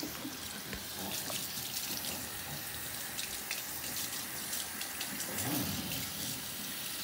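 Pull-down kitchen faucet spray head running steadily, the water hissing as it splashes over a wet cat and into the sink.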